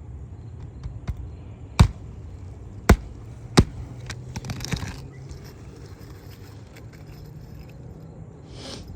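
Three sharp hammer knocks on an asphalt shingle roof, spaced about a second apart, followed by a brief scraping rustle of the shingle being handled.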